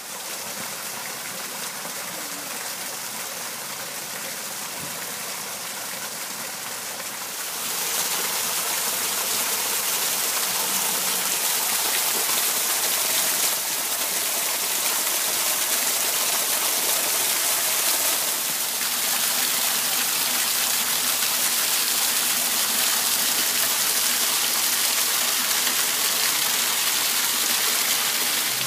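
Small man-made waterfall splashing over boulders into a shallow rocky pool: a steady rush of falling water that gets louder about seven and a half seconds in.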